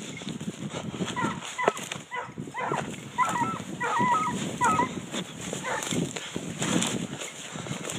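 Pack of scent hounds baying in a string of short calls while working the trail of a sounder of wild boar. The calls come thickest about halfway through, over steady rustling of brush close by.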